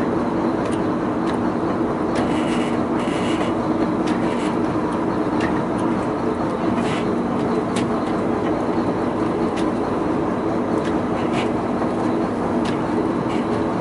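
Fishing boat's engine running with a steady drone, with scattered knocks and clatter from work on deck.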